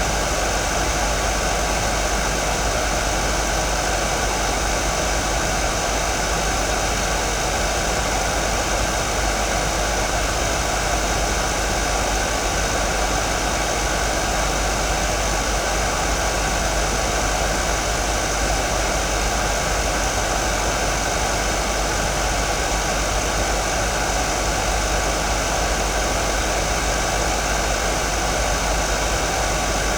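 Hair dryer running steadily: an even rushing noise with a few faint steady tones in it, unchanging in level.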